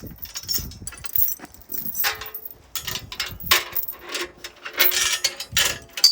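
Metal chain rattling and clinking in irregular bursts as it is handled and hooked up, with a few ringing metal clanks.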